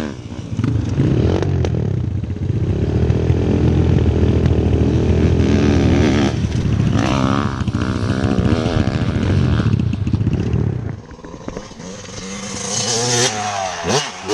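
Small off-road motorbike engine running hard under throttle, heard from on board. About eleven seconds in it gives way to a quieter engine that swells as a dirt bike comes closer, with a couple of sharp knocks near the end.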